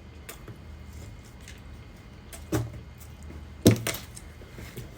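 A few sharp knocks and clicks over a low steady hum, the loudest knock about three and a half seconds in.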